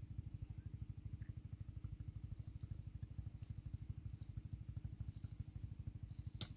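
Low, steady engine throb with a rapid, even pulse that does not change. A single sharp click comes near the end.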